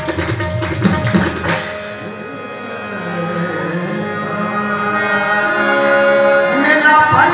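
Qawwali music: a fast hand-drum rhythm stops about a second and a half in, leaving harmonium chords held under the group. Near the end a male voice begins a rising sung phrase.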